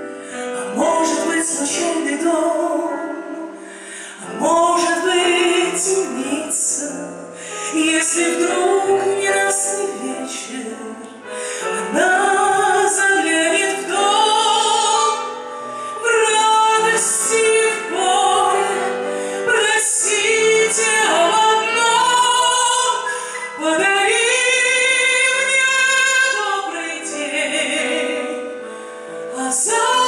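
A woman singing a Russian ballad live into a handheld microphone, amplified through the hall's sound system, with a band accompanying her. She sings in phrases of long held notes with wide vibrato, briefly pausing between lines.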